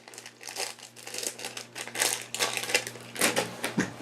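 Plastic packaging of a squishy toy crinkling and crackling irregularly as it is handled.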